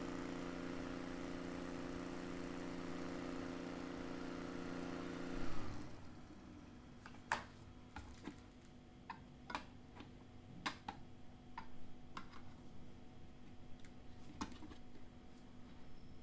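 Small battery-powered folding desk fan running with a steady hum and air hiss, switched off about five seconds in and winding down. Scattered light clicks and taps follow.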